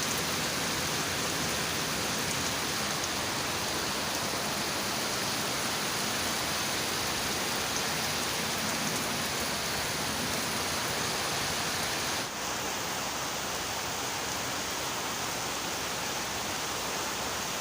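Steady rain falling in a dense, even hiss. About twelve seconds in it dips for a moment and carries on slightly softer.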